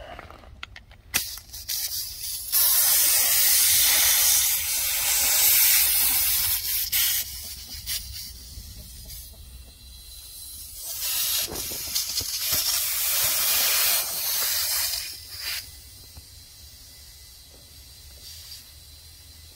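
Compressed air hissing through a digital tire-inflator gun into a small tractor tire at its valve stem, reinflating a flat just repaired with a plug kit. It comes in two long bursts, the first about six seconds and the second about four, with short blips between as the trigger is squeezed and released.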